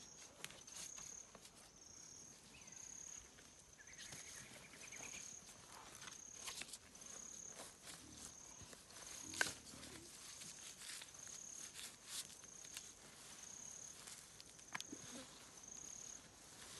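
Faint, steady chirping of a cricket, a short high note about once a second. A few soft clicks and scuffs come from a GPS tracking collar being handled and fastened around a sedated pig's neck; the sharpest is about nine seconds in.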